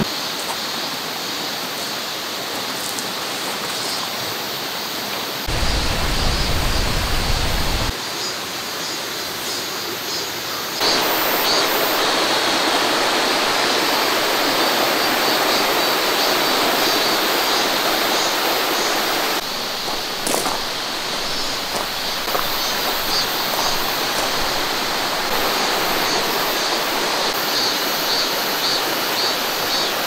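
Valley stream flowing, a steady noise of running water that steps up and down in level at several cuts. A low rumble sits under it for a couple of seconds a few seconds in.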